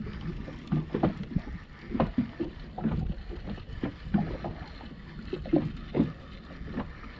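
Small waves slapping and knocking against the hull of an inflatable boat, in irregular dull splashes.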